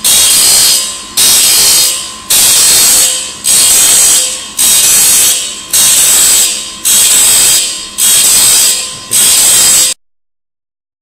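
Beiping 480Z semi-automatic circular saw blade grinder sharpening the blade's teeth one after another. A loud, hissing grind starts sharply and fades away about once a second, nine times in all, as the wheel works each tooth and the blade indexes on to the next. It cuts off abruptly near the end.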